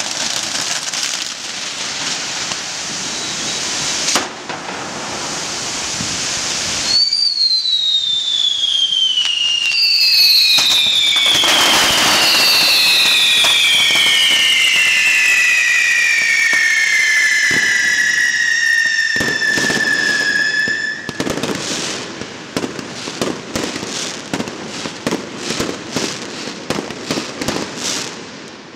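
Pirotecnia del Mediterráneo ground fireworks burning: a steady hiss of spark fountains, then from about seven seconds in several pyrotechnic whistles shriek together, each slowly falling in pitch, for about fourteen seconds. These give way to dense crackling as a curtain of falling-spark fountains burns.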